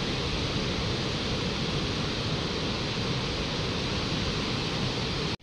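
Steady rushing of a fast white-water mountain river pouring over a rocky bed, heard from above.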